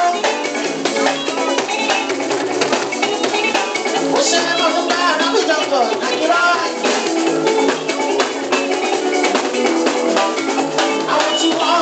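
Live Fuji music: a dense mix of Yoruba percussion with drums and shaker keeping a busy, steady rhythm, and a lead vocal over it through a microphone.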